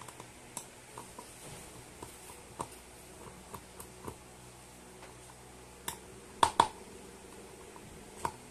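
Small scattered clicks and taps of a screwdriver working screws out of a JBL Flip 5 speaker's plastic housing, with the loudest pair of sharp clicks about six and a half seconds in.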